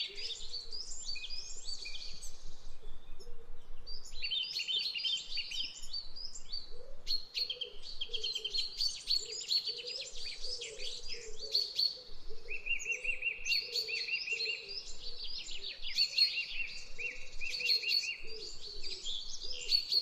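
Many small birds chirping at once, their short calls and trills overlapping almost without a break.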